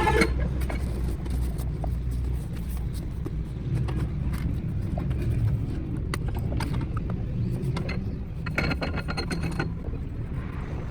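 Steady rumble of road traffic, with scattered light clicks and taps, and a brief pitched sound with many overtones, like a vehicle horn, about nine seconds in.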